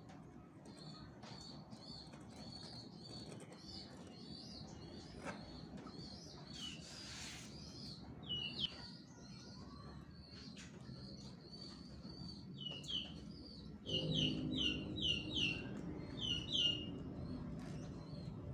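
Small birds chirping in quick repeated calls over a low background rumble, which grows louder about fourteen seconds in as the chirping gets louder too.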